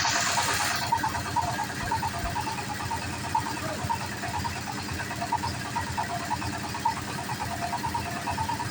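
Engine of a bored-pile drilling rig running steadily, with a brief burst of hiss at the very start.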